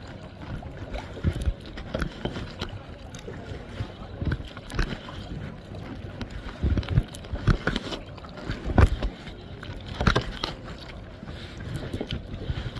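Kayak paddling: irregular paddle strokes splashing and dripping over water lapping at the hull, with a couple of louder splashes near the end.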